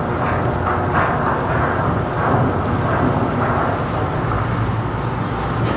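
A cargo ship's propulsion running as it manoeuvres to berth: a loud, steady rumble with churning water.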